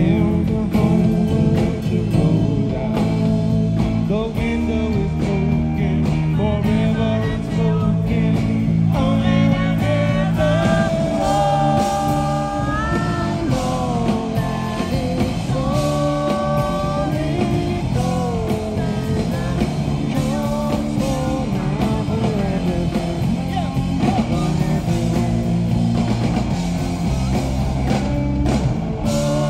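Rock band playing live: electric guitar and bass guitar with singing, the melody sung in long held, gliding notes from about a third of the way in.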